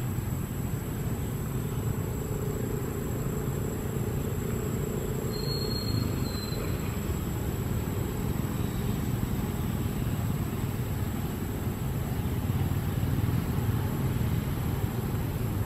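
Steady low outdoor rumble with a thin, steady high-pitched whine over it, and one brief high chirp about five and a half seconds in.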